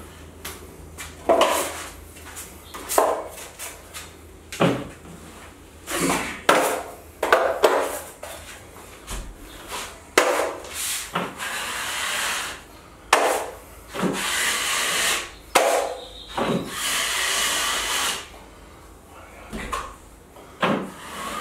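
Steel drywall knife scraping joint compound out of a mud pan and drawing it across drywall, over and over: short sharp scrapes and clacks, with several longer, even strokes of a second or two in the middle stretch.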